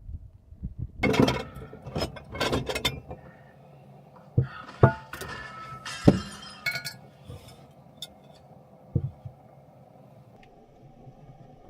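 A run of sharp knocks and clinks of hard objects, some with a short ringing tone, mostly in the first seven seconds.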